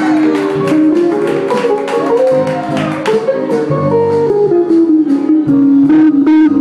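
Live band playing amplified music, with electric guitar, saxophones, keyboard and drums.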